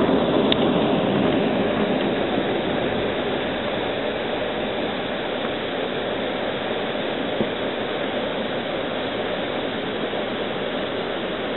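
Steady running noise of an Amtrak passenger train heard from inside the passenger car: an even rushing rumble of wheels on rails, a little louder at first, with a faint click about half a second in.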